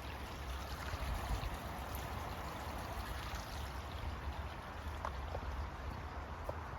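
A steady rushing noise with a low rumble underneath, like running water or wind on the microphone, with a faint tick or two near the end.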